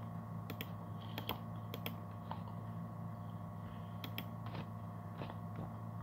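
Computer mouse clicking: a handful of short, sharp clicks, some in quick pairs, over a steady low electrical hum.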